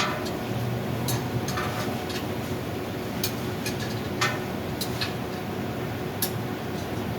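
Irregular sharp metallic clicks and taps, roughly one every second, from tools and parts being handled while a blower is fitted, over a steady low machine hum.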